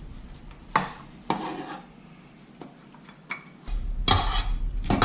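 Kitchen knife chopping baby carrots on a cutting board: several separate, irregular knocks of the blade against the board.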